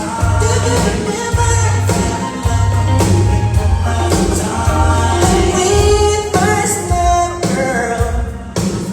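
Live band playing a pop song with sung vocals holding and gliding between long notes, over a steady bass line, during a sound check.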